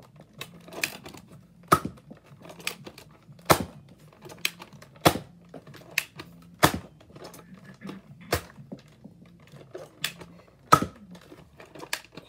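Toy Nerf dart blaster being fired over and over: a sharp snap roughly every one and a half to two seconds, with lighter clicks and rattles from working the blaster in between.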